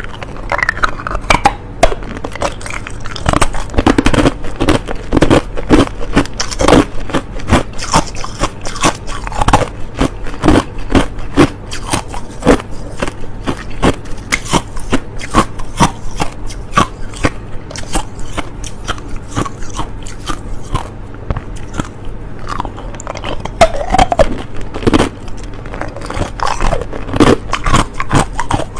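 A person biting and chewing hard, clear crushed ice: continuous sharp, crackling crunches, several a second.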